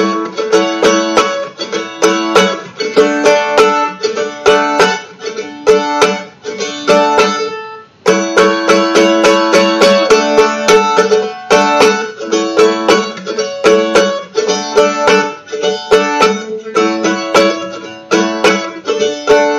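Mandolin tuned to open D, strummed in a steady rhythm through a run of simple chord shapes, the chords changing as it goes, with a brief pause about eight seconds in.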